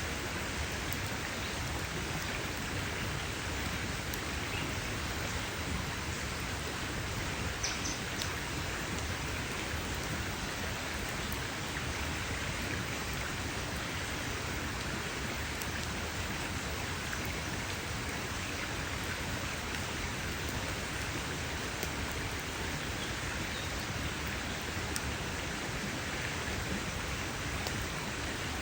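Campfire burning: a steady hiss with occasional sharp crackles and pops.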